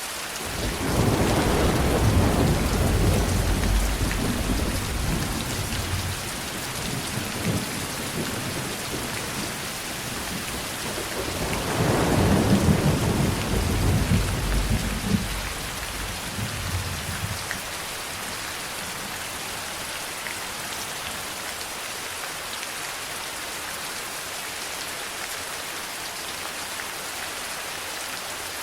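Steady heavy rain hiss with two long rolls of thunder, the first building about a second in and rumbling for several seconds, the second about halfway through; after that only the rain continues.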